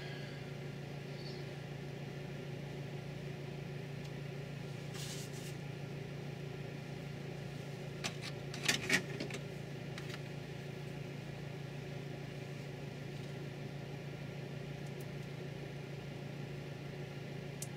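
Steady low hum throughout, with a few brief clicks and rustles of small objects being handled at a bench. The clicks come around the middle and are loudest about nine seconds in.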